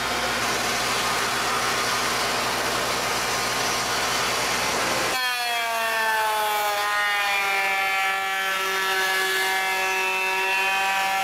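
Makita belt sander, set belt-up on a bench, grinding steel with a harsh, dense noise for about five seconds. The noise then stops abruptly, leaving the sander's motor whine, which slowly falls in pitch as the machine runs down.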